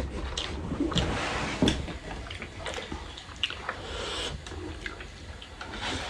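Eating spicy buldak noodles: wet slurping and chewing, with scattered small clicks.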